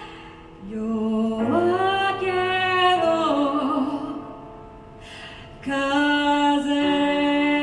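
A female singer holding long notes over piano chords in a slow song, with two brief quieter lulls between phrases.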